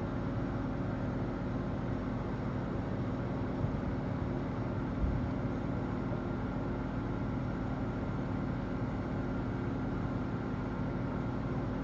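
A steady low machine hum, like an engine or motor running, unchanged throughout, with two faint knocks about four and five seconds in.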